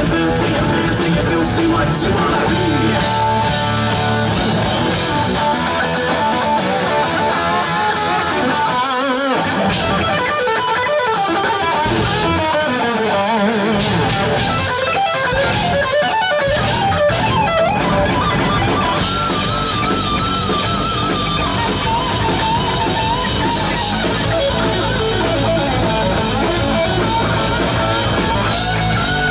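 Live heavy metal band at full volume: an electric guitar plays a lead line with wavering, bent notes over drums, bass and distorted rhythm guitar. The low end drops out briefly a few times partway through.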